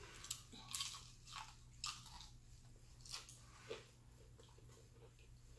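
Close-up eating of crispy fried chicken: irregular crunches of the fried breading being bitten and chewed, about six in the first four seconds.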